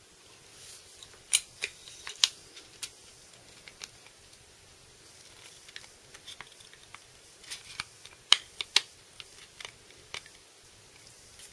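Small metal clicks and taps from an ISSC M-22 .22 LR pistol's slide, barrel and recoil spring being handled as the spring is worked over the barrel to put the pistol back together. The clicks are scattered, a few in the first three seconds and a quicker cluster about eight to nine seconds in.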